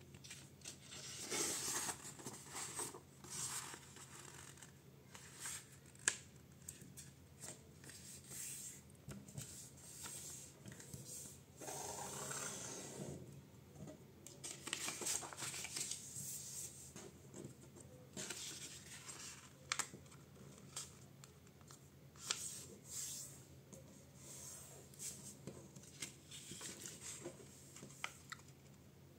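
A sheet of paper being folded by hand into a paper airplane: the paper rustles as it is lifted and turned, and fingers scrape along the folds to press the creases flat, with a few sharp taps.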